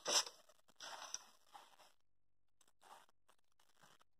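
Paper notebook page being turned: a few short, faint rustles and crackles in the first second or so.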